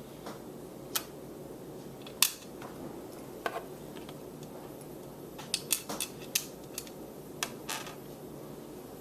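Scattered sharp clicks and taps of a plastic outdoor thermometer and its suction cups and screws being handled on a table, with a quick run of clicks a little past the middle.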